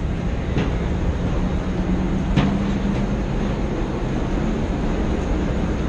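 Steady rumble of airport apron noise with a low steady hum, and sharp clicks about half a second and two and a half seconds in.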